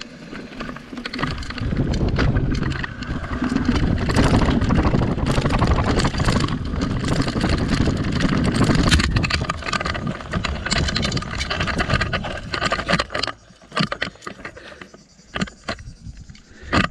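Handlebar-level rumble and rattle of an electric mountain bike rolling over a rocky trail, thick with knocks from stones and the bars. The noise drops off sharply about 13 seconds in, leaving a few scattered clicks.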